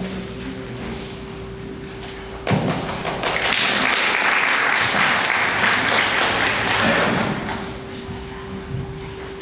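A thump about two and a half seconds in, then about five seconds of clapping that fades out.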